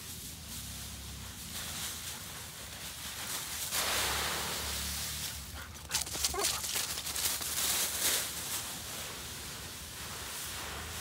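Dry fallen leaves rustling and crunching underfoot as dogs run through a leaf pile, loudest about four seconds in and again from about six to eight seconds. A brief dog whine about six seconds in.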